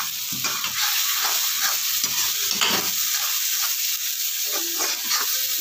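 Masala paste and ground spices sizzling in hot oil in a kadhai, with a metal ladle scraping the pan about twice a second as the masala is stirred and fried.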